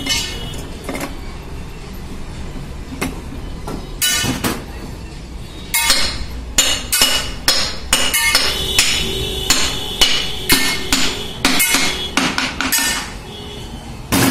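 Hammer blows on metal with a ringing tone, a few scattered strikes at first, then a fast irregular run of one to two strikes a second through most of the second half, and a last strike at the end.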